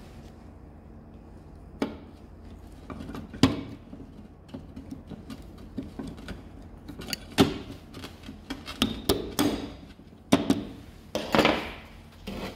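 Irregular sharp metallic clinks and knocks of circlip pliers and a snap ring being worked onto a steel shaft above a ball bearing, with a steady low hum underneath.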